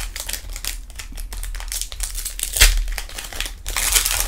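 Foil wrapper of a Pokémon trading-card booster pack being torn open and crinkled by hand: a run of irregular crackling rips, the loudest about two and a half seconds in, with a dense burst of crinkling near the end as the pack is pulled apart.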